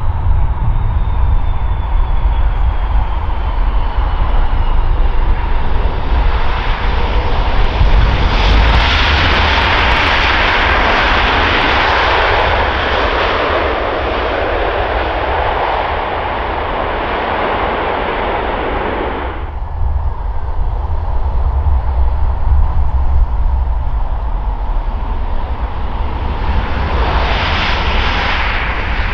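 Jet engines of Airbus airliners on the runway: an A330-200 landing, then an A320 rolling out after touchdown. The jet noise swells about eight seconds in, cuts off suddenly about two-thirds of the way through, and swells again near the end over a steady low rumble.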